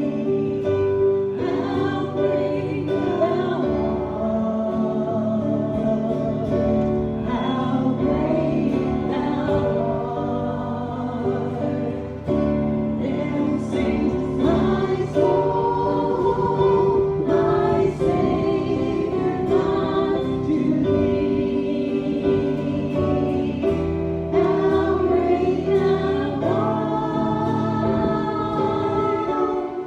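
Several voices singing a gospel hymn together, with instrumental accompaniment under the voices.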